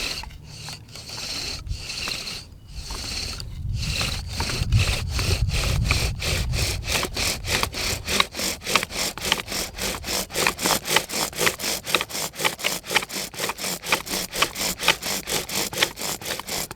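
Bow drill being worked back and forth: a seep willow spindle turning in a fidget spinner's ball bearing and grinding into a cottonwood hearthboard to burn in the seat. The strokes come quicker and crisper as it goes on, then stop suddenly near the end.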